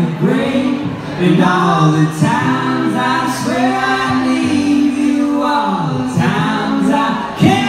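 Live acoustic band performance: a man sings lead over his acoustic guitar while a woman sings harmony on a second microphone, with long sustained sung notes.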